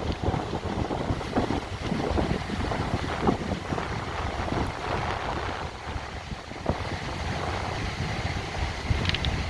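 Sea surf washing onto the beach, with gusting wind rumbling on the microphone.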